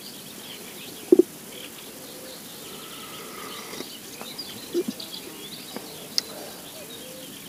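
Small songbirds chirping and singing over a faint steady background. There is one short, louder low sound about a second in, and a softer one later.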